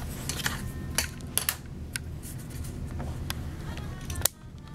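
Scattered light clicks and taps from handling things on a craft table, over a steady low hum. The sound cuts off abruptly near the end.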